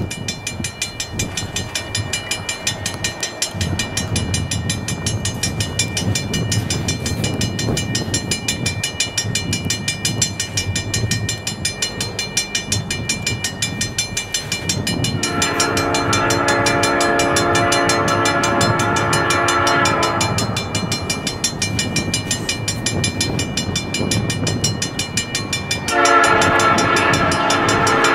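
Canadian National freight train approaching, its rumble growing louder, while the lead locomotive's air horn sounds two long blasts: one of about five seconds about halfway through, and another starting near the end.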